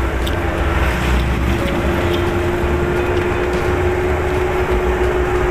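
Engine and road noise of a passenger vehicle heard from inside its open cabin while riding: a steady low rumble with a constant hum at one pitch.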